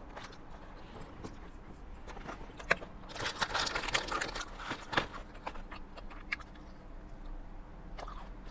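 A person chewing a mouthful of salad: soft crunching and wet mouth clicks, densest for a second or so about three seconds in, with a few sharp clicks scattered through.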